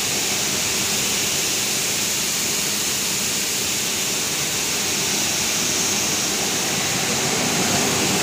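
Steady rushing hiss of an electro-galvanizing wire line running, with liquid pouring from flexible hoses into the plating tanks over the moving wires, and a faint machine hum underneath.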